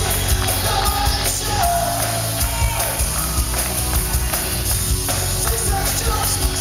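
Live band playing a rock song, a man singing into a microphone over acoustic guitar and a steady beat with jingling percussion.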